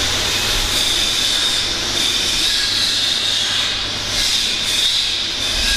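A steady, loud hissing rush over a low, constant hum, with no breaks or strikes.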